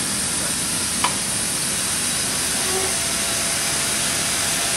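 Steady hiss of steam bleeding through a triple-expansion steam engine and out of its open cylinder drain cocks, with the regulator cracked open to warm the engine through. A single sharp metallic click about a second in.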